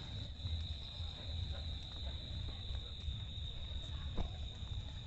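Crickets trilling in a steady, unbroken high-pitched chorus, over a constant low rumble.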